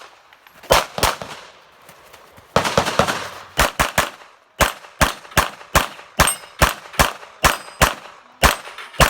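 Rapid semi-automatic pistol fire from a shooter running a timed USPSA stage: about twenty sharp shots in quick pairs and strings, each with a short echo. There is a brief pause about a second in, then the firing picks up again and runs steadily to the end.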